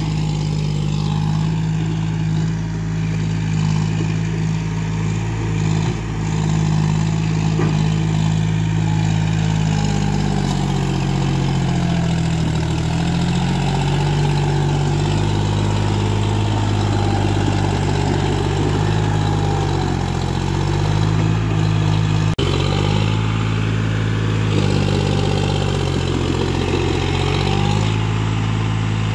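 Tractor diesel engine working hard, hauling a loaded trailer up a steep rocky track. The engine speed rises and falls several times as the driver works the throttle under load.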